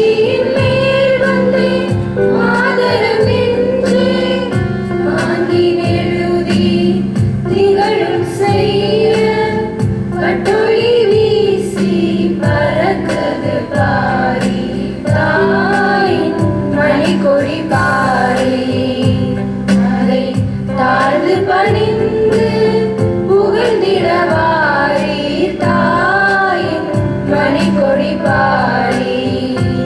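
A group of women singing a patriotic flag song in chorus over steady held chords from an accompanying instrument.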